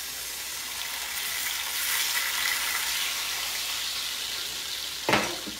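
Beef chuck roast sizzling steadily in hot olive oil in a Dutch oven, a little louder in the middle. A short knock comes about five seconds in.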